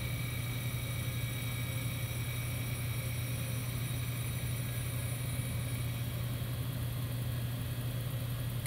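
Brown & Sharpe No. 1 cylindrical grinder running steadily during final spark-out passes: a strong, even hum with several thin, steady high whines over it.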